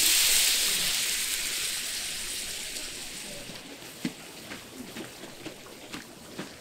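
Water hitting a hot, oiled pan of pan-fried buns, hissing loudly; the sizzle fades over a few seconds and gives way to bubbling and scattered popping as the water boils around the buns.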